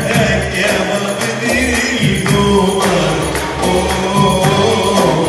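Live Arabic tarab music amplified through PA speakers in a hall: a male singer singing with electronic keyboard accompaniment and a steady beat.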